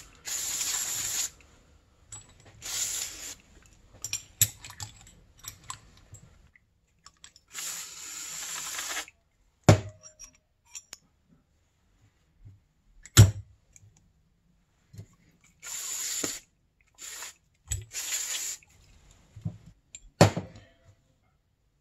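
An aerosol cleaner sprayed in several short hissing bursts through its straw onto snowmobile exhaust power valve parts to clear off gunk. A few sharp metal clinks come between the bursts as the parts knock together or are set down.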